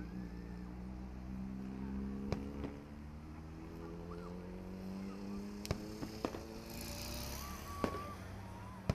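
Fireworks going off in several sharp bangs, with a short crackling burst about seven seconds in, over the steady running of an engine close by.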